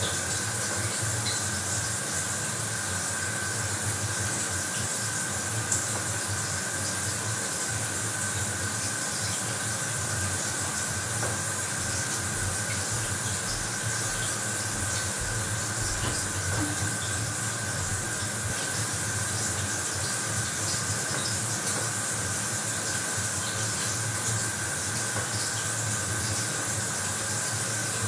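Bathroom shower running steadily: a constant spray of water falling, with a faint steady tone underneath.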